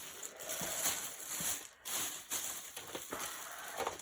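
Handling noise: irregular rustling with scattered small clicks and knocks.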